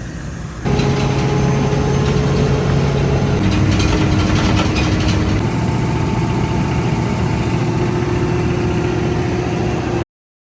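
An engine running steadily, its pitch stepping down twice, then cutting off suddenly.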